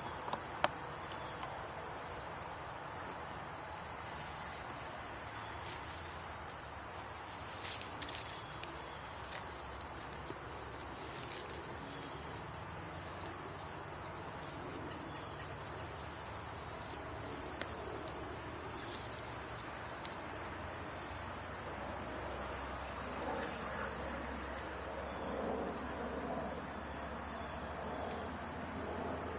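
Steady, high-pitched chorus of insects, with a couple of brief sharp clicks.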